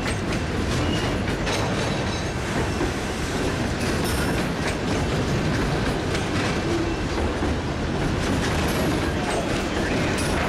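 Freight train of enclosed autorack cars rolling past close by: a steady rumble of steel wheels on rail with the clickety-clack of the wheels over the track.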